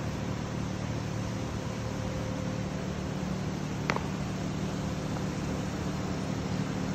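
Steady hum of a ventilation or air-conditioning fan, with a single sharp click just before the four-second mark.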